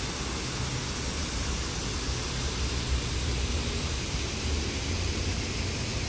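Steady rushing noise of water pouring down the sloping concrete walls of a city river channel, with an uneven low rumble underneath.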